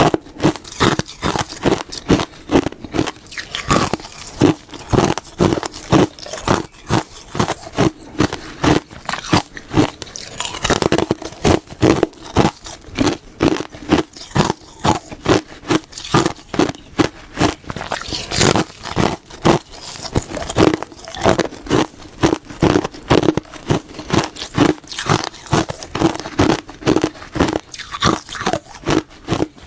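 Close-miked ASMR crunching: teeth biting and chewing through something hard and brittle in a fast, steady run of loud crunches, several a second.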